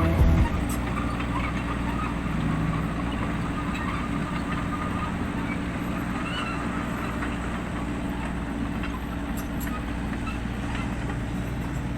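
An engine running steadily: a low, even hum with no change in speed. Background music cuts out about half a second in.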